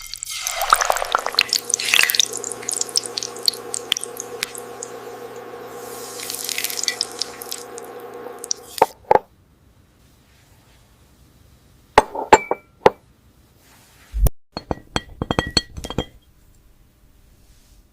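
AI-generated glass ASMR sounds: crisp glassy clinks and tinkling over a steady ringing tone for about the first nine seconds, then a few separate sharp taps, each with a short bright ring.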